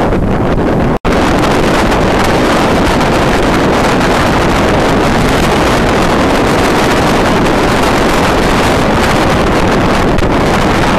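Loud, steady wind rushing over the microphone of a moving motorcycle. It cuts out for an instant about a second in.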